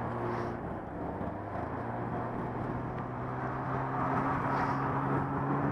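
Skiing downhill on a groomed trail, heard through a helmet-mounted camera: a steady rush of wind and skis hissing on packed snow, with a low steady hum underneath.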